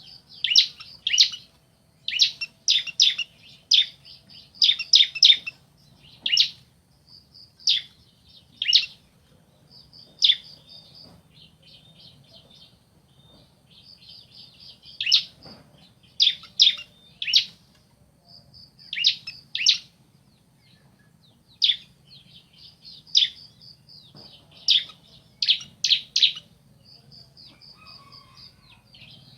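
Bar-winged prinias (ciblek), male and female, calling back and forth: clusters of loud, sharp chip notes alternating with quieter rapid strings of short high notes, with a couple of brief lulls.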